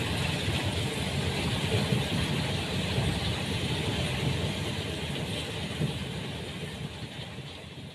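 Stone crusher plant running, a steady mechanical noise with a heavy low rumble, slowly fading near the end.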